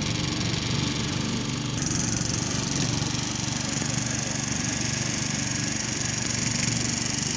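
Small boat outboard motor running steadily at cruising speed, with a rushing hiss that grows brighter about two seconds in.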